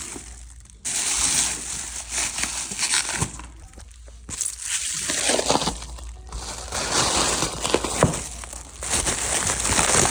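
Plastic packaging crinkling and rustling in uneven bursts as a replica championship belt is handled, with a few sharp clicks and knocks.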